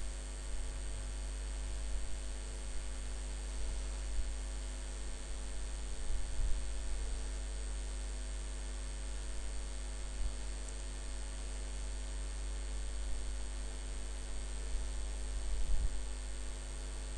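Steady electrical mains hum with faint hiss on the recording line, with a few faint low bumps.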